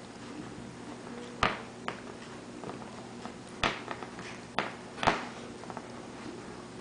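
A cat biting and chewing a small toy figure on a hard floor: sharp clicks and taps, four louder ones spread over a few seconds with softer ones between.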